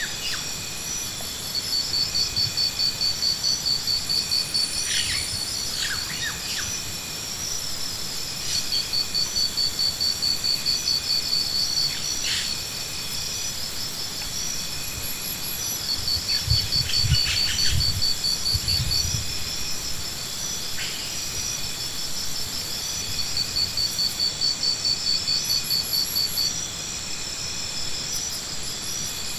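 Insects trilling: a high, pulsing trill that comes in phrases a few seconds long over a steady high whine, with a few short bird chirps in between and a brief low rumble about two thirds of the way through.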